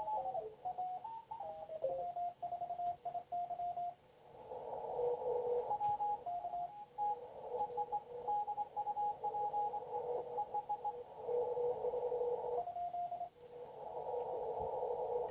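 Morse code (CW) signals from an ICOM IC-7200 receiver tuned to the 20-meter band. Short keyed beeps change pitch in the first couple of seconds as the dial moves across stations. After about four seconds band hiss comes through the narrow CW filter, with the dits and dahs of several stations at two different pitches.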